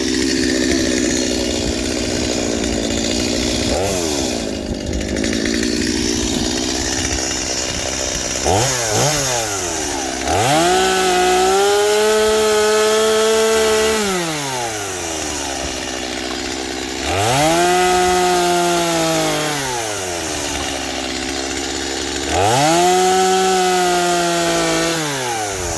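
Two-stroke chainsaw revved to high speed three times, each burst held for two to four seconds before the pitch falls back toward idle. Before the first rev it runs at a lower, rougher speed.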